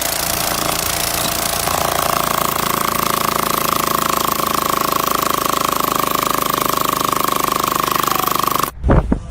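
Loud, steady mechanical clatter of a machine running hard, with a steady whine joining about a second and a half in. It cuts off abruptly near the end.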